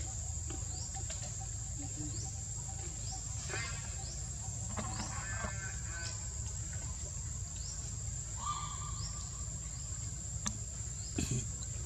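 Steady high-pitched insect drone with short rising chirps recurring roughly once a second. A few brief pitched calls come in the middle and a sharp click near the end, over a low rumble.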